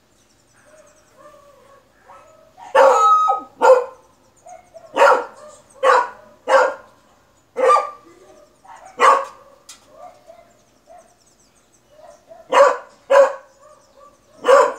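Beagle barking: about ten short, sharp barks in clusters, the first one longer and drawn out, with a pause of about three seconds near the middle.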